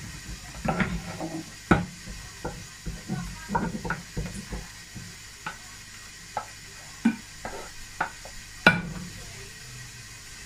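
A cooking utensil knocking and scraping against a pot as freshly cooked fufu is scooped out. There are a dozen or so irregular knocks, busiest in the first half, with the loudest near the end.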